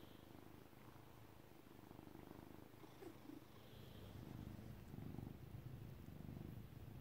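A Siamese-type cat purring faintly and steadily close to the microphone while having its cheek rubbed; the purr grows louder about two-thirds of the way through.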